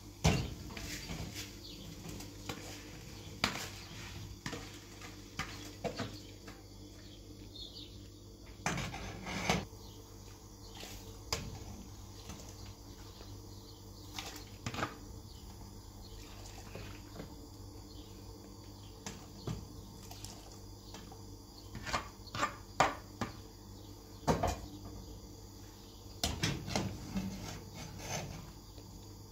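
Intermittent clinks and knocks of pots, dishes and utensils being handled, scattered irregularly and busier near the end, over a steady faint background hum.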